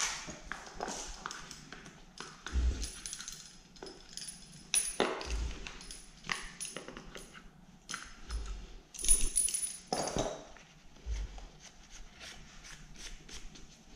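Irregular handling noise of a chainsaw's plastic sprocket cover being cleaned by gloved hands: knocks, clicks and short scrapes of the cover and nearby tools on cardboard, the loudest clatter about nine seconds in.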